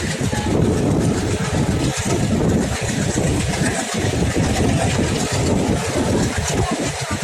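Alco diesel locomotive hauling a passenger express, its engine and the train's running noise a steady heavy rumble with an even rushing noise over it.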